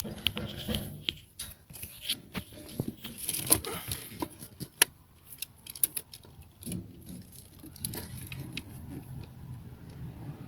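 Sharp plastic clicks and snaps from a car relay box being pried apart by hand, with a few louder snaps in the middle, followed by softer rubbing and scraping as the parts are handled.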